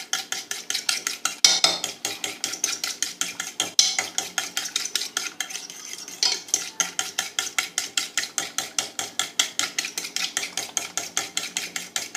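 A utensil beating an egg, milk and sugar batter in a bowl: quick, even strokes clicking against the bowl, about six a second.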